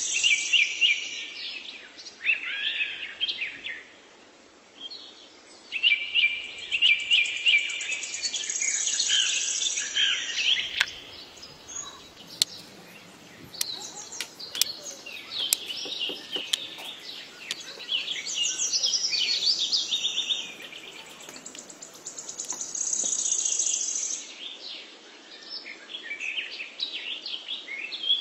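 Birdsong: small birds chirping in quick, repeated phrases, with a few light clicks in the middle.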